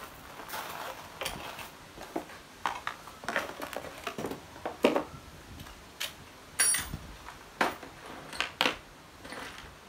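Irregular metallic clinks and clacks, about a dozen sharp knocks spread unevenly over several seconds, one about six and a half seconds in ringing briefly.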